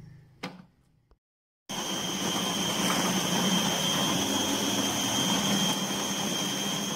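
Electric food processor motor running steadily with a high whine, chopping onion into minced chicken. It starts suddenly about two seconds in, after a short knock.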